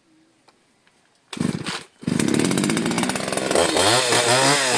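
Two-stroke chainsaw being started: quiet at first, a short burst of firing about a second and a half in, then it catches about two seconds in and runs, revved up and down.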